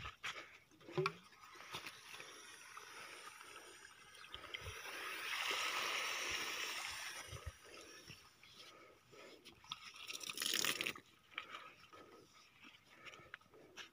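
Water pouring from the open end of a black plastic irrigation pipe and splashing into the muddy furrow, loudest about six seconds in. Another short rush of noise comes near the end.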